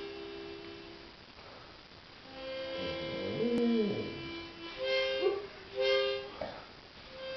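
A dog howling softly along to held instrumental chords, its voice rising and falling in one long arched howl a few seconds in, with shorter howls near the end.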